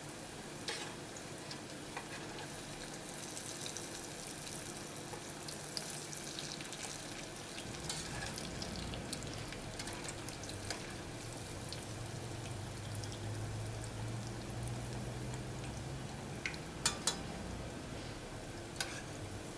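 Falafel balls deep-frying in hot oil, a steady sizzle with fine crackling throughout. A few sharper clicks come near the end, and a low hum joins about eight seconds in.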